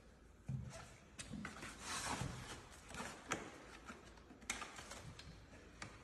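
Faint handling sounds of packaging being cut and pulled off a new bicycle: several sharp clicks, with a short rustle about two seconds in.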